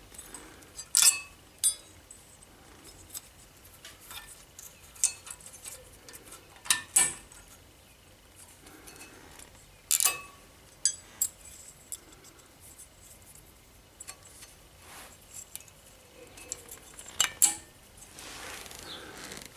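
Scattered sharp metallic clicks and clinks as steel brake pad retaining clips and pads are handled and pressed into a car's brake caliper carrier. The loudest knocks come about a second in, around the middle and a few seconds before the end.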